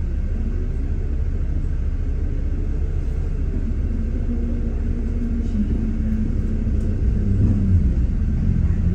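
Double-decker bus engine rumbling low and steady, heard from inside the bus in slow stop-start traffic, swelling a little about seven seconds in.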